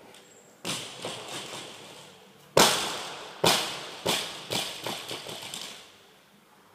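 Loaded barbell with bumper plates dropped onto rubber gym flooring. It lands with one loud bang about two and a half seconds in, then bounces and rattles several more times at shortening gaps until it settles. A smaller thump comes just before, near the start.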